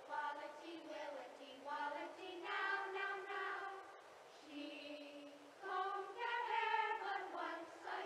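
A group of children singing in unison, a sung choral melody with no low end, as heard on an old film soundtrack.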